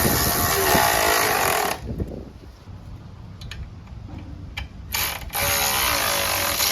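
A handheld power tool running in two bursts of a second or two each, its pitch wavering, during work on a motorcycle's exhaust fittings.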